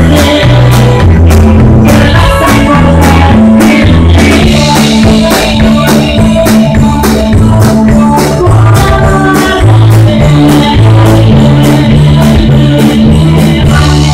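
Live band playing loud: an electric bass guitar carries a stepping bass line under drums and cymbals keeping a steady beat.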